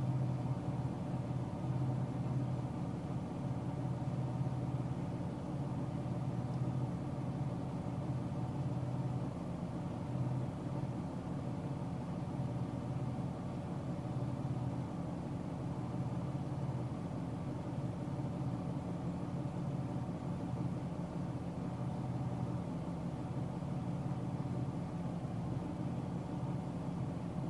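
Car engine and tyre noise at steady highway speed, heard from inside the car as a constant low hum that does not change.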